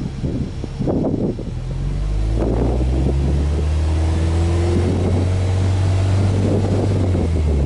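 Subaru Legacy B4 tuned by STI's flat-four boxer engine, heard at its twin exhaust tips, revved up in neutral about two seconds in and held at raised revs for about five seconds, then let back down near the end.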